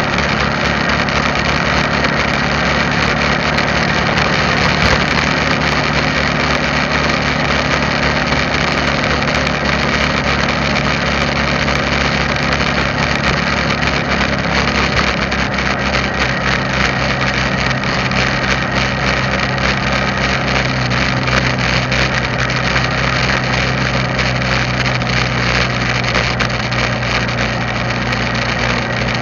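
A vehicle's engine running steadily with road noise while cruising, its pitch settling a little lower about halfway through.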